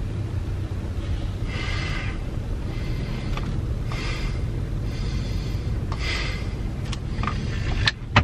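Steady low rumble inside a car with its engine running, with breaths every second or so and a few sharp clicks near the end, the last and loudest just before the end.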